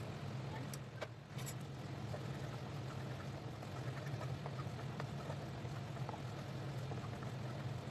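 Ginger-garlic-honey sauce bubbling in a frying pan as it is stirred, a faint steady sizzle over a low hum, with a few light clicks of the utensil against the pan about a second in.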